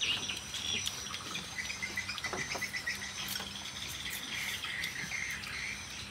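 Steady chorus of crickets chirping at a high pitch, with a few light clicks of chopsticks against porcelain bowls.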